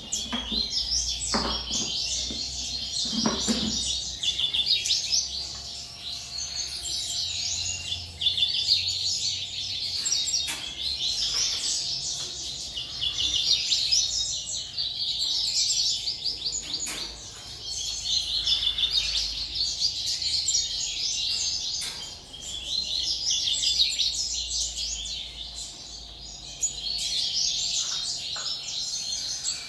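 A dense chorus of many small captive songbirds chirping and twittering almost without pause, swelling and fading in waves every few seconds. A couple of faint knocks sound near the start.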